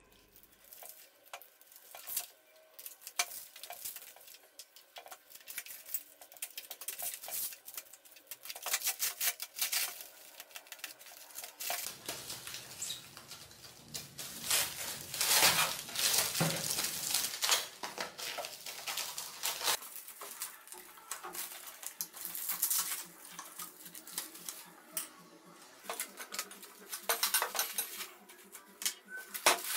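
Plastic packing wrap crackling, rustling and tearing as it is cut and pulled off a new foldable table's wooden top and metal frame, with scattered clicks and knocks of the parts being handled. The crinkling is busiest and loudest about halfway through.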